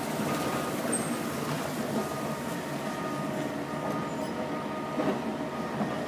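Steady rumble of heavy vehicle engines running, with a car driving up on the dirt road. Faint short high beeps come now and then.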